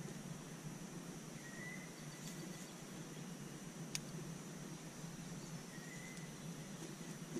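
Quiet outdoor ambience: a steady high-pitched insect drone over a soft hiss, with two faint short chirps and a single sharp click about four seconds in.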